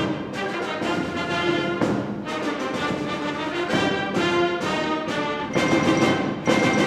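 Orchestral music with brass and timpani, playing a series of chords that change every second or so.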